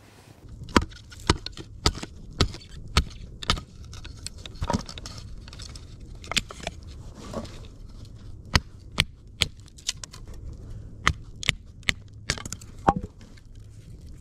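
A series of sharp knocks, about two a second at first, then in short runs of two or three with pauses between.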